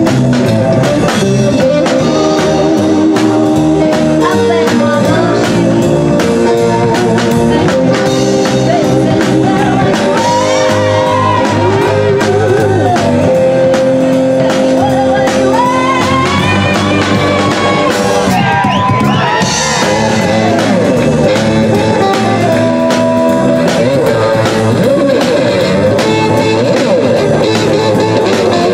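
A rock'n'roll band playing live: a woman singing over electric guitar and drums with a steady beat.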